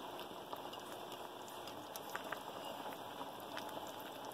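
Fish curry simmering in a wide pan: a faint, steady bubbling hiss with small scattered pops.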